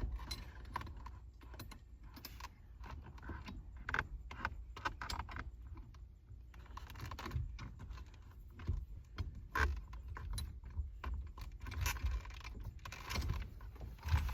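Irregular small metallic clinks and taps of bolts and a harmonic balancer puller being handled and fitted to a steering wheel, with a few louder knocks.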